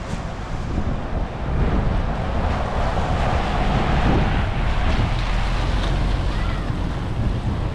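Strong storm wind gusting over the microphone: a heavy low rumble with a rushing hiss, growing louder about a second and a half in.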